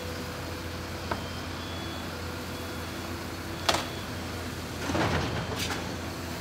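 Excavator working on a burnt-out roof over a steady diesel drone, with a sharp crack a little past halfway and a longer rushing crash about a second later as its grab pulls the roof structure apart.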